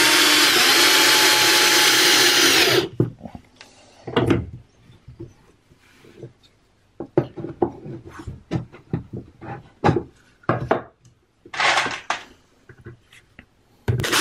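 Cordless drill/driver whining as it drives a wood screw into the plywood cabinet, then stopping sharply about three seconds in as the screw seats. Scattered clicks and knocks of handling follow, with short bursts of noise, and the drill starts up again near the end.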